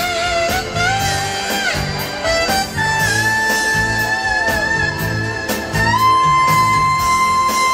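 Saxophone playing a slow melody over backing music with a steady beat. It plays held notes with pitch bends and slides, then from about six seconds in holds one long, high note.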